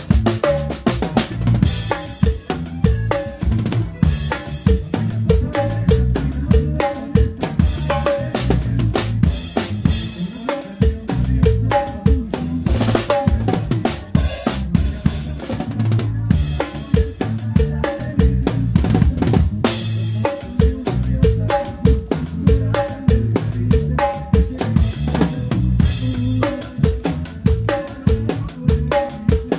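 Drum kit played live in a band: a steady beat on bass drum, snare with rimshots, and cymbals, over the band's bass line and short melody notes.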